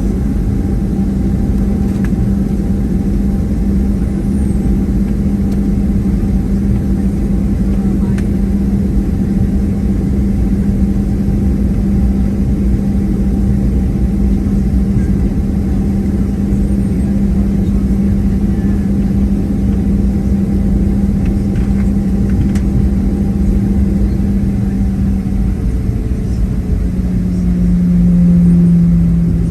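Cabin noise inside a Boeing 737-700 on the ground before takeoff: a steady drone with a low hum from the jet engines and air systems. Near the end the hum drops a little in pitch and swells briefly louder.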